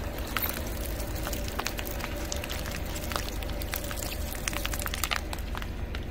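Car tyre rolling slowly over plastic bowls of water beads, crushing them: scattered sharp crackles and pops of plastic and gel beads over a steady low rumble.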